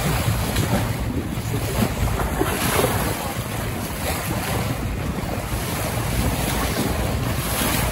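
Wind buffeting the microphone over the wash of water rushing and splashing along the side of a moving boat, a steady noise throughout.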